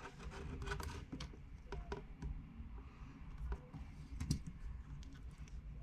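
Scattered light clicks and taps of a replacement iPad mini 2 touch screen being picked up and handled on a work surface.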